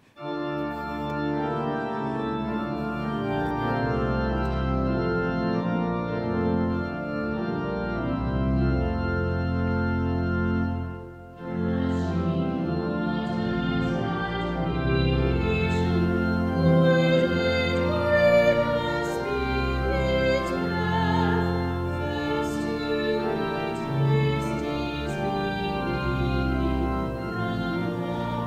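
Organ playing a hymn introduction in held chords, breaking off briefly about eleven seconds in, then voices singing the hymn with the organ.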